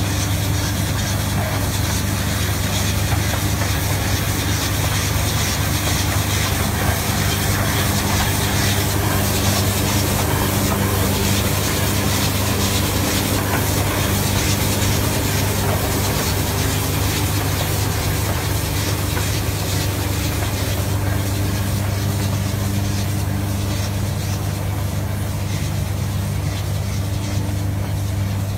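Engine and moulding machinery of a self-propelled automatic brick-making machine running at a steady speed as it lays rows of green bricks: a constant low hum under an even mechanical noise, unchanging throughout.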